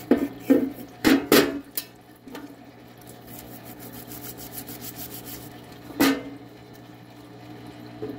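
Parts-washer pump humming steadily as solvent runs from its spout, while a diesel fuel injection pump housing is scrubbed with stiff bristle brushes. The housing knocks against the tub several times in the first two seconds and once more about six seconds in, and a fast run of brush strokes comes in the middle.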